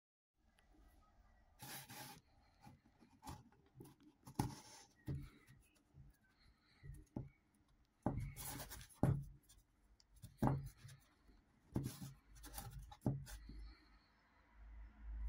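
Cardboard tape roll cores scraping and rubbing against each other as they are pushed and slid inside an outer core, with irregular scrapes and light knocks.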